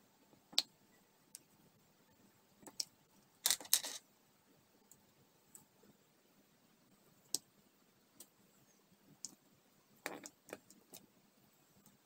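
Small sharp clicks and taps of a diamond-painting pen's multi-placer tip picking up round resin drills and pressing them onto the adhesive canvas. A denser burst of clicks comes about three and a half seconds in, and another around ten seconds in.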